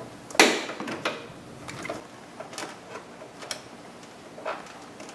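Hand work on the plastic coolant overflow bottle's mounting and fasteners in a car's engine bay: a sharp knock about half a second in, then scattered light clicks roughly a second apart.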